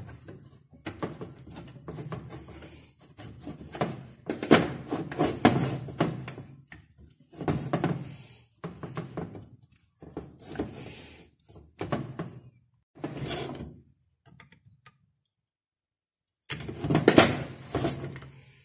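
Irregular knocks, clinks and scraping of hand tools and metal engine parts being handled while a brushcutter engine is worked on, in bursts with short pauses and a louder clatter near the end.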